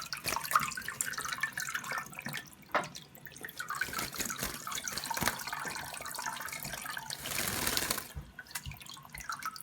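Tap water running into cupped hands at a bathroom sink, with uneven splashes and drips as a green-cheeked conure bathes in the water, the water running heavier about seven seconds in.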